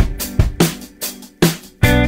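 Background music with a steady drum beat, about two hits a second, and guitar.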